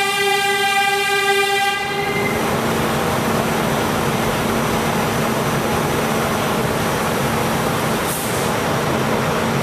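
R46 subway car running on the track, heard from inside the car: a steady pitched tone lasts until about two seconds in, then the noisy rumble and rattle of the moving train continue. A short hiss comes near the end.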